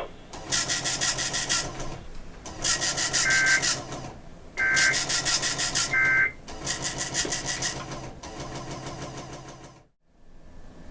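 NOAA Weather Radio SAME digital data bursts, the harsh raspy buzz of the coded tones that control weather alert receivers, sent five times in a row with short gaps and cutting off about ten seconds in.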